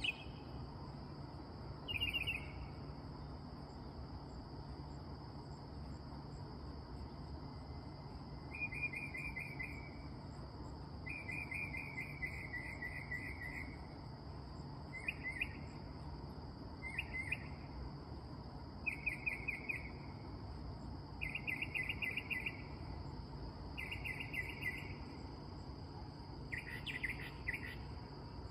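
Northern mockingbird singing at night: short phrases of rapid repeated notes, one after another every second or two, over a steady high drone of night insects.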